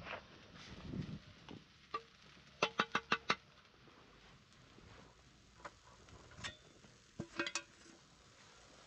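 Light sharp clicks and clinks of hard objects knocking together, in a quick run of five about three seconds in and another short cluster about seven and a half seconds in.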